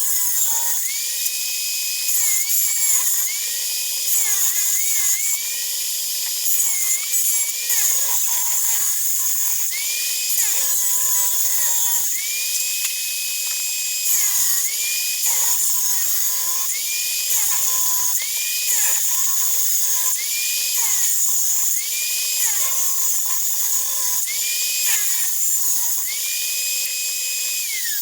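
Electric power saw ripping a board lengthwise. The motor whine sags briefly every second or two as the wood loads the blade, then climbs back to speed.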